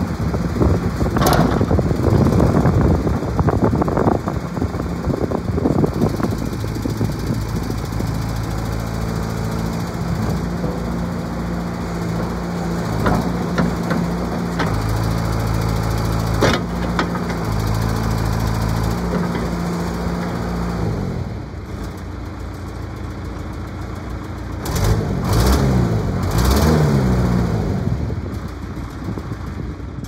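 John Deere 410D backhoe's diesel engine running under hydraulic load while the backhoe boom is worked, with a couple of sharp clunks. It drops in level about two-thirds of the way in, then its pitch rises and falls a few times near the end.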